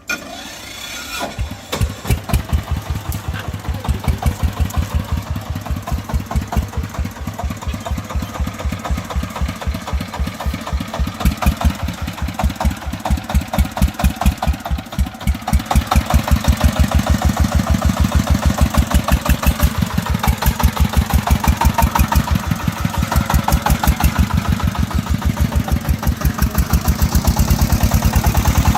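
The single-cylinder diesel engine of a công nông three-wheeler starts about a second in, then runs with an even, rapid chug of exhaust puffs. It grows louder about halfway through.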